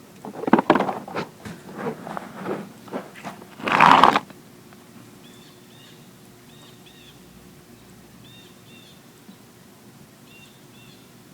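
Hand work on car parts and tools: a run of sharp clicks and knocks for about three and a half seconds, then a short, louder rush of noise about four seconds in.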